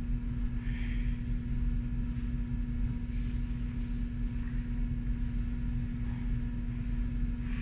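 Steady low electrical or mechanical hum with a constant rumble beneath it, with a few faint brief sounds over it.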